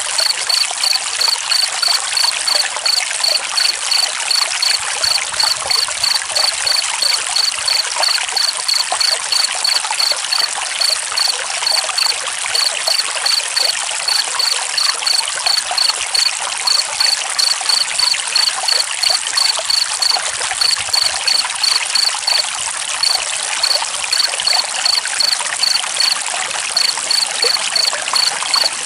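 Steady trickling stream water with a cricket chirping over it in a regular, fast rhythm of about two to three chirps a second, broken by a few short pauses.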